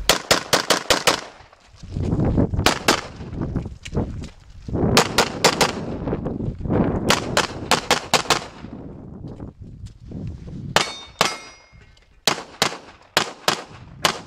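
Rapid strings of handgun shots, in quick groups of two to six with short pauses between. About eleven seconds in, a hit steel target rings with a metallic clang.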